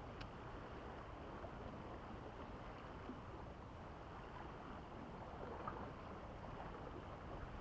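Steady wash of gentle sea water lapping against shoreline rocks, with light wind on the microphone.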